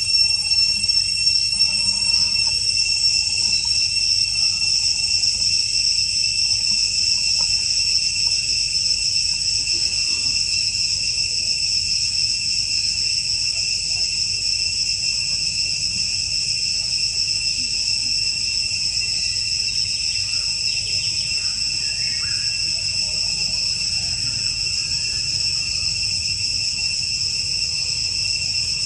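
A steady, high-pitched insect chorus, several pitches held together without a break, over a low rumble.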